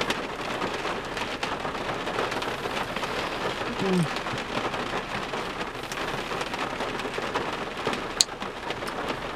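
Steady rain pattering on a car roof, heard from inside the cabin. A brief low hum comes about four seconds in, and a sharp click near the end.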